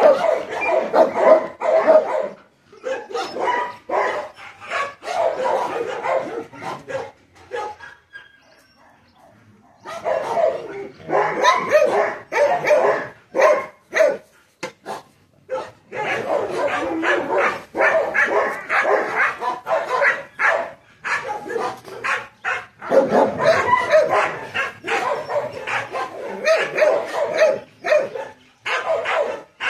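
Dog barking, yipping and whining in a long, rapid run of short calls, with a break of about two seconds roughly a quarter of the way in.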